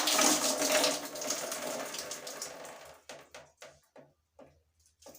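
Water left inside an opened electric shower head pouring out and splashing, fading away over about three seconds into scattered drips and small clicks.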